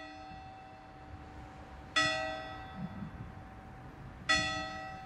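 Tower clock bell striking the hour: two strikes, about two seconds in and again about four seconds in, each ringing on and fading slowly, with the tail of a strike just before still sounding at the start.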